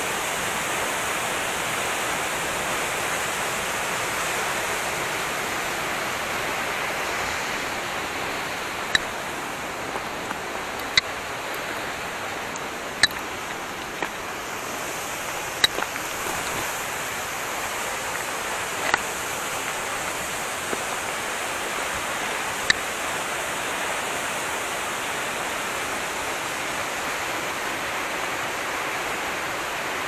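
Waterfall rushing steadily down a rock face, with about six sharp clinks through the middle of loose stones knocking together underfoot.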